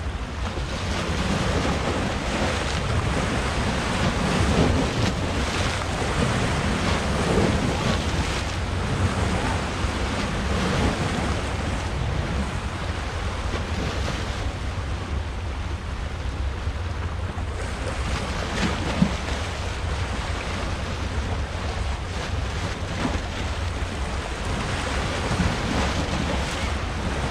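Sea waves washing and breaking on a rocky shore in slow swells, with wind buffeting the microphone as a steady low rumble. One brief sharp knock stands out about two-thirds of the way through.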